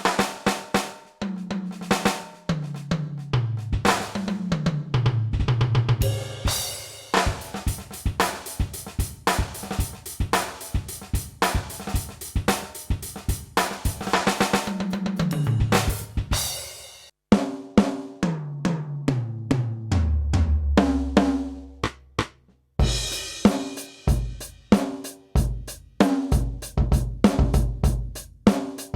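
Yamaha DTX720K electronic drum kit played through its DTX700-series module: a kick, snare, hi-hat and cymbal groove with several tom fills stepping down in pitch. There are brief breaks about 17 and 23 seconds in, and a deep sustained low drum note shortly after 20 seconds.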